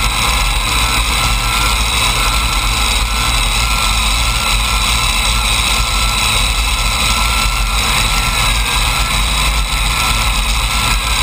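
Several supercharged Hemi V8 engines of a modified pulling tractor idling steadily, loud and close to the microphone.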